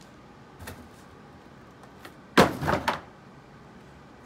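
Empty cardboard shipping carton handled and moved off the counter: one loud thump about two seconds in, then a few quicker knocks and rustles.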